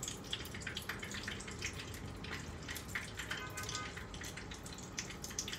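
Hot oil sizzling in a frying pan, with a steady scatter of small crackling pops, as two tuna spring rolls shallow-fry.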